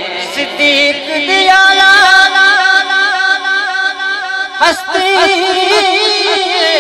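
A man singing a naat, a devotional song in praise of the Prophet, into a microphone. He holds long, wavering notes, breaks briefly about two-thirds of the way through, and starts a new phrase.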